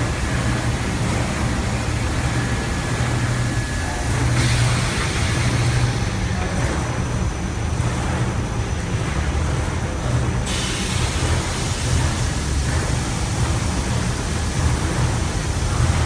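Industrial carpet washing machine running: a steady low hum under a dense, even hiss. The hiss shifts about four seconds in and again about ten seconds in.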